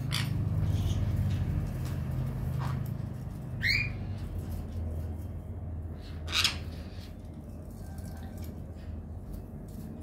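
Pet parrot giving a short call that slides downward in pitch about four seconds in, then a harsher, louder squawk a few seconds later, over a steady low hum.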